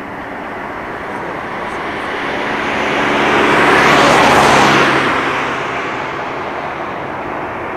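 Twin-engine jet airliner on final approach, its engine noise swelling to its loudest about four seconds in and then easing off.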